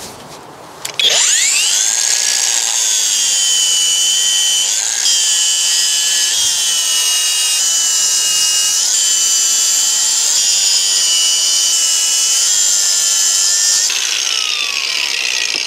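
Angle grinder spinning up about a second in, then cutting into the vertical mortar joints of a brick wall with a loud, steady high whine whose pitch shifts slightly a few times as the disc bites. It is switched off near the end and winds down with a falling tone.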